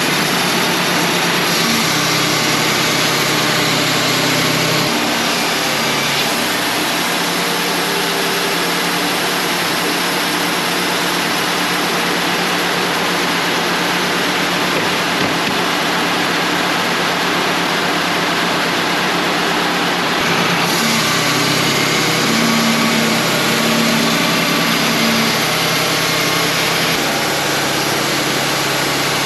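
Wood-Mizer LT35 hydraulic portable sawmill running under steady power, its band blade sawing lengthwise through a knotty white pine log. The engine note steps a little in pitch a few times.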